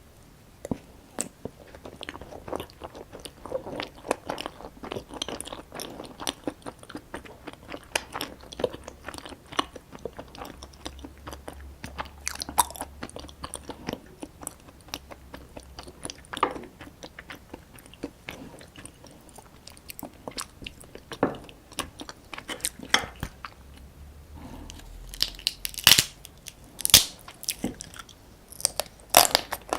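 Close-miked eating of soy-sauce-marinated raw crab: wet chewing and sucking with frequent crunching and cracking of crab shell, the crunches louder and sharper near the end.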